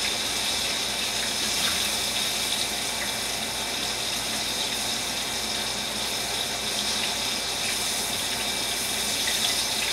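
Oat-and-flour-coated chicken pieces frying in hot oil in a pan, a steady sizzle, with a couple of faint clicks.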